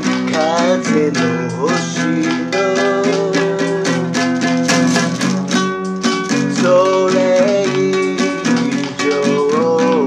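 Classical nylon-string guitar with a capo, strummed in a steady rhythm of chords, with a man singing a ballad over it.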